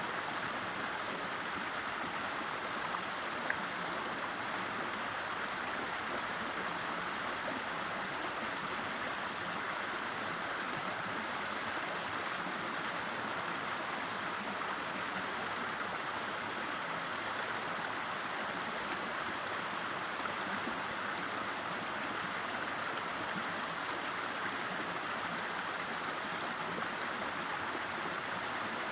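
River water rushing and babbling in a steady, unbroken flow.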